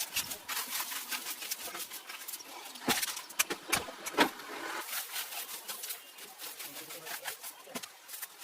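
A run of rapid clicks and knocks, with a few louder knocks about three to four seconds in.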